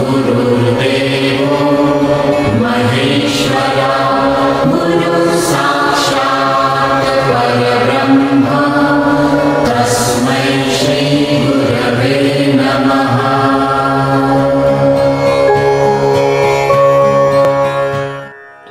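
Devotional music: a chanted mantra sung over a steady drone, with occasional sharp strikes. It cuts off shortly before the end.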